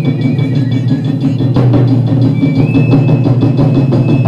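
Japanese taiko drums played in a fast, driving rhythm, mixed with the hissing spray of hand-held tube fireworks (tezutsu hanabi). A single sharp crack comes about a second and a half in, and a high steady tone joins past the middle.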